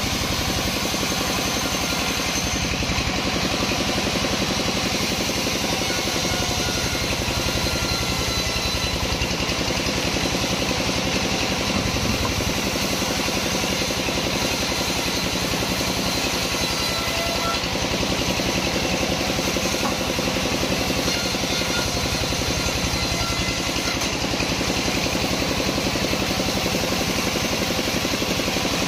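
Sawmill saw machine running steadily: a continuous, even engine-like drone with no breaks or changes.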